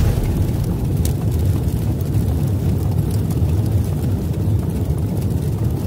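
A steady, loud, low rumbling sound effect from an animated logo intro, with no clear pitch or rhythm.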